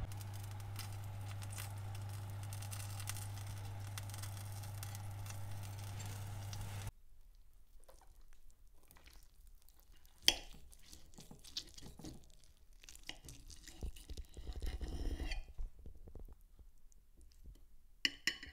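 Fan oven running with a steady low hum, which stops abruptly about seven seconds in. Then a knife and fork cut through baked chicken breast on a plate: a sharp clink of metal on the plate, soft scraping and tearing, and a couple of clicks near the end.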